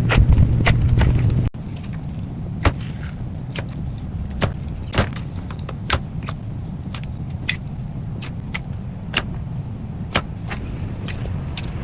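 Slime being squeezed and worked by hand, giving irregular sharp sticky clicks and pops over a low rumble of handling noise. The sound drops suddenly in level about a second and a half in and carries on more quietly, with the clicks spaced out.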